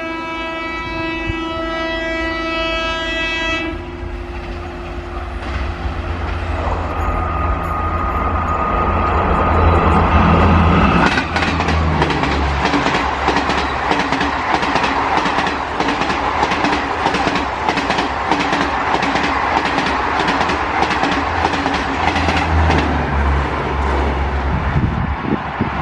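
High-speed Indian Railways express train sounding its multi-tone horn for a few seconds, then rushing past at speed with a rapid, steady clatter of wheels over the rail joints for most of the rest.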